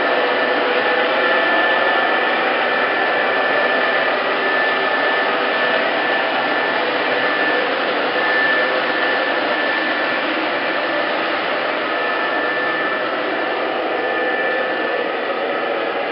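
MTH Premier O-gauge model freight train rolling by on three-rail track: a loud, steady rush of metal wheels on the rails, with a faint steady whine above it.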